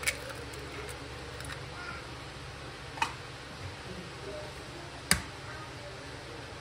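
Eggs being cracked against the rim of a ceramic mixing bowl: three sharp knocks, one at the start, one about three seconds in and one about five seconds in.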